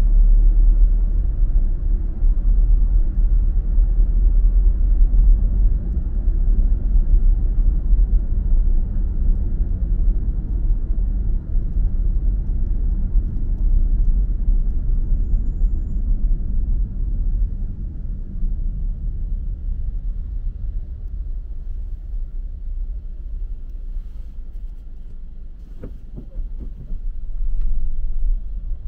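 Steady low rumble of a car driving on a city road, engine and tyre noise, growing quieter in the second half and picking up again shortly before the end.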